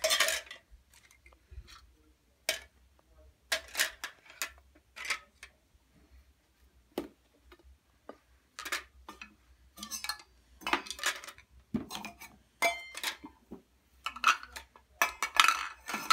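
Toy kitchen dishes being handled: plastic plates, pans and a small metal pot clattering and clinking in irregular knocks, with a denser burst of clatter near the end.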